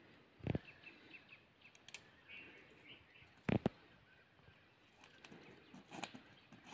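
A few sharp clicks or knocks: one about half a second in, a quick pair about three and a half seconds in, and a weaker one near the end. Faint bird chirps sound between them.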